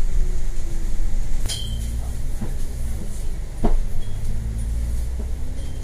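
Riding inside a moving bus: a steady low engine and road rumble with a faint whine that slowly rises and falls. A few sharp clicks from the bus interior come in the first half, the loudest about a second and a half in and again a couple of seconds later.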